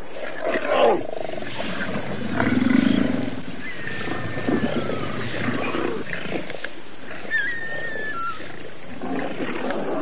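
Lionesses growling and snarling over a kill in short, rough bursts, one low growl near three seconds in. Thin high whistles sound twice in the middle.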